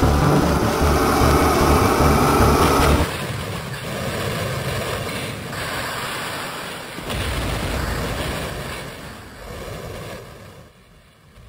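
Loud, heavy-bottomed music and noise cut off sharply about three seconds in. A rumbling, explosion-like noise follows, surges a couple of times, and dies away near the end.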